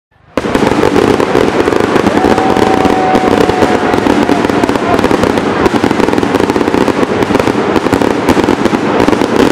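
Fireworks going off in a dense, continuous rapid crackle and popping, starting about half a second in.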